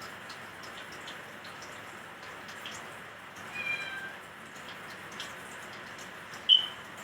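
A cat meows twice: a short falling meow about halfway through, then a louder, sharper one near the end. Underneath runs a steady hiss with scattered small pops, the sound of food frying in oil.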